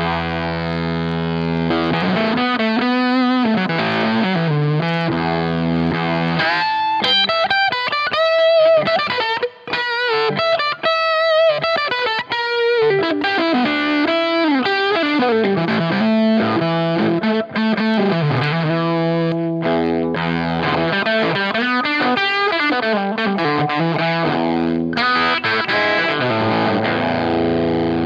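Gibson Nighthawk electric guitar played through a Dunlop FFM1 Silicon Fuzz Face Mini fuzz pedal into a Marshall Super Lead amp, giving a thick fuzz-distorted tone. It opens on a ringing chord, moves into single-note lead lines with bends and vibrato, and ends on sustained chords.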